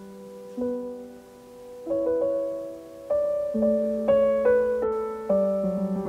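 Slow piano music, single notes and chords struck and left to ring out.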